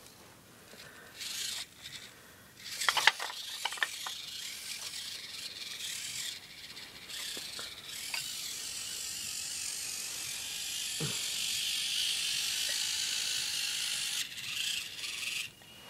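Losi Micro Trail Trekker RC crawler's small electric crawler motor and gears whining as it drives, with a few clicks and knocks of the truck on rocks about three seconds in. The whine stops suddenly shortly before the end.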